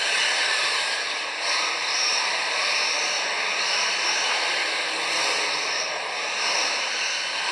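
Several 1/10-scale electric touring cars racing: the high whine of their brushless motors and drivetrains over a steady hiss, swelling and fading as the cars pass close.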